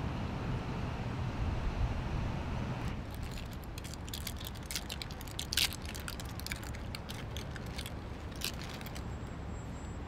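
Plastic cough-drop bag crinkling and crackling as it is handled and pulled open. The crackling starts about three seconds in, is loudest about halfway through and stops near the end, over a low, steady background rumble.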